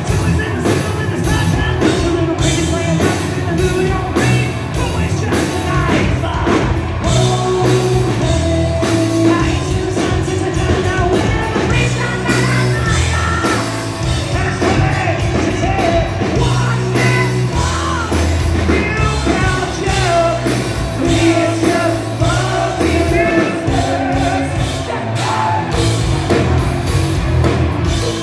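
Hard rock band playing live at full volume, with a male lead singer over drums, bass and distorted guitars, heard from the audience in a large hall.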